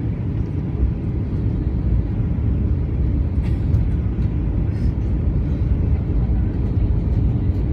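Airbus A320 passenger cabin noise on approach: a steady low rumble of engines and rushing air heard from a window seat over the wing.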